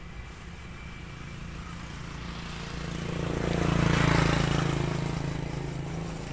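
A motor vehicle passing on the road: engine hum and tyre noise that grow louder to a peak about four seconds in, then fade away.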